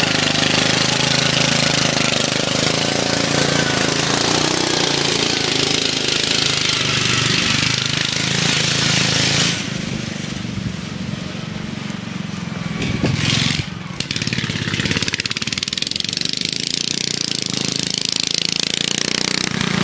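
Racing lawn tractor's 12 hp Briggs & Stratton single-cylinder flathead engine running hard under way, with a rapid, staccato exhaust beat. It is loud and close for the first half, then drops noticeably quieter about halfway through, with a brief loud spell a few seconds later.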